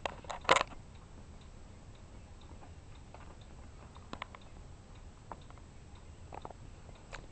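Kittens' claws snagging and scratching on the shaggy fabric of a cat bed: scattered light clicks and ticks, with a louder scuffle of rustling and clicks about half a second in.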